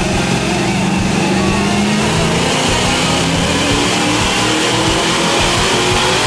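1974 Dodge Dart's engine running loud through open headers, its pitch climbing slowly and steadily as it pulls, with music underneath.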